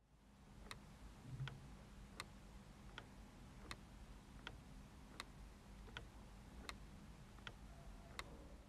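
Clock ticking faintly and evenly, about four ticks every three seconds, alternating a stronger tick with a weaker tock, over a low steady hum.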